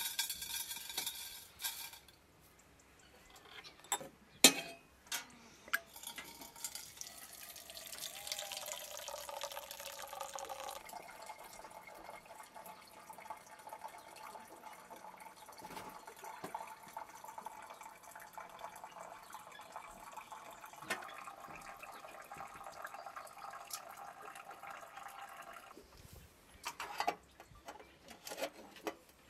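Hot water running from a brass samovar's tap into a vessel: a steady pour with a hollow pitched note that cuts off suddenly near the end. A few sharp clinks of glass or metal come before it, the loudest about four seconds in.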